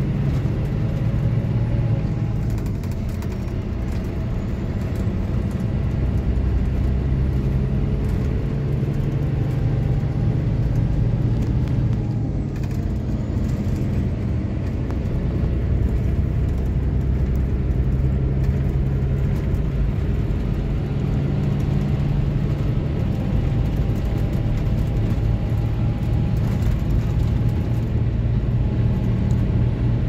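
Scania DC13 inline-six diesel of a Scania K440IB coach running under way, heard from inside the passenger cabin as a steady low drone whose pitch drifts slightly up and down.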